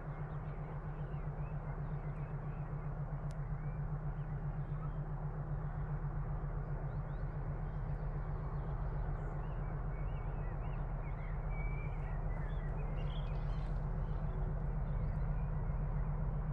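Distant Class 50 diesel locomotives, heard before they come into sight: a low, throbbing engine drone that grows steadily louder as they approach, with birds chirping.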